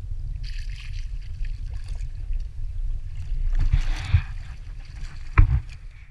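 Water splashing as a squid is scooped up in a landing net at the side of a boat, over a steady low rumble. A single sharp knock comes about five seconds in.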